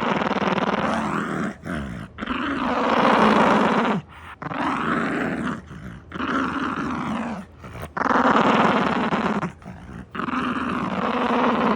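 A dog growling in long, drawn-out bouts, about six of them, each lasting a second or two with short breaks between.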